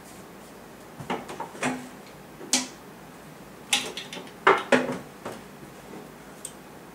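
Kitchen clatter: several groups of short knocks and clinks from things being handled, such as dishes, drawers or cupboard doors.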